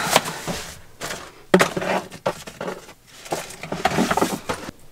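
Paper shopping bags rustling and crinkling as they are lifted and carried, with the boxes, jars and containers inside knocking and clinking together in an irregular clatter, with a few sharp knocks.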